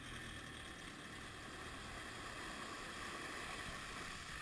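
Water rushing and splashing off a rigid inflatable boat and its trailer as they are towed out of the sea up a slipway, a steady rushing noise.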